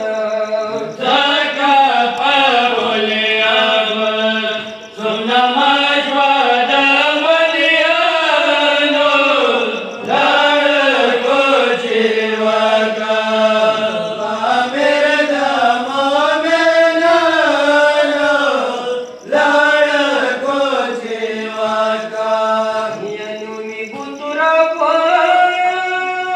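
Pashto noha, a Shia mourning lament, chanted by a single voice in long, slow melodic phrases, with brief pauses for breath about 5, 10 and 19 seconds in.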